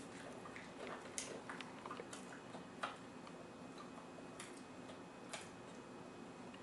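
Faint, irregular clicks and light handling sounds as a cell phone is moved against a small dog's head, over a low steady room hum.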